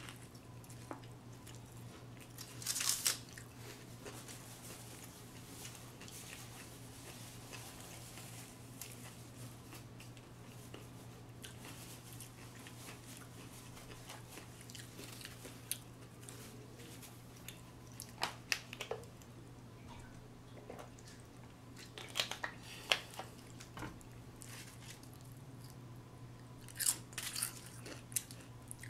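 Close-up eating of crispy fried food: a loud crunchy bite about three seconds in, then chewing, with further clusters of crunches later on. A steady low hum runs underneath.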